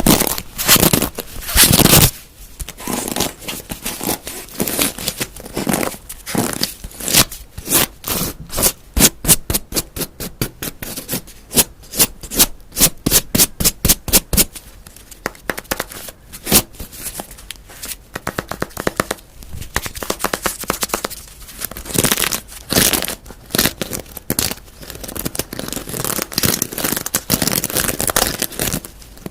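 Close-miked ASMR trigger sounds: an object being scratched and tapped, with a run of quick even strokes in the middle, about four or five a second.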